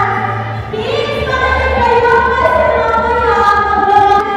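A girl singing solo into a handheld microphone, holding long notes that slide from one pitch to the next, amplified through the hall's speakers.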